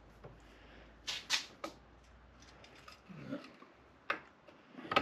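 Sharp metal clicks and snaps of brake spring pliers working a stiff brake spring into place: three in quick succession about a second in, then a couple more near the end.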